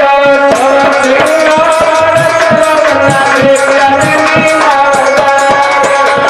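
Indian folk dance music (lokgeet): a sustained, held melody line over regular hand-drum strokes.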